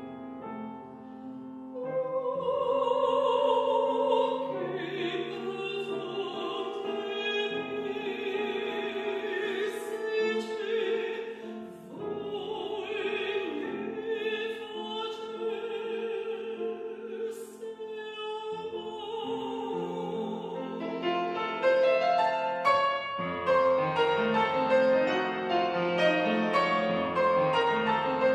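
Soprano singing a classical art song in long, vibrato-rich phrases over grand piano accompaniment. About three quarters of the way through the voice stops and the piano carries on alone, louder and busier.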